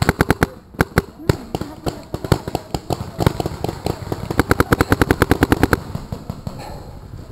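Paintball markers firing in rapid strings of shots. The fastest string, about ten shots a second, comes around four to six seconds in, and the firing thins out near the end.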